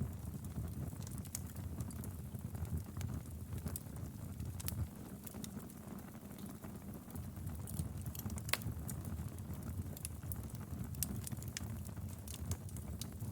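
Wood fire burning in a fireplace: irregular sharp crackles and pops over a steady low rumble of the flames, with one louder pop about two-thirds of the way through.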